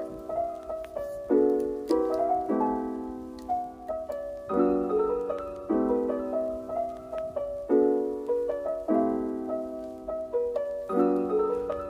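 Background piano music: soft chords struck in a repeating pattern, a new chord every second or two.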